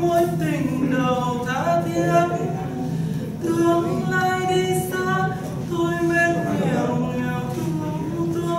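A solo voice singing a slow melody, holding long steady notes with slides in pitch between them.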